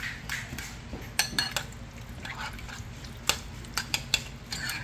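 Metal spoon stirring a mash of roasted eggplant and saltfish in a glass bowl, with irregular clinks and scrapes against the glass, a few of them ringing briefly.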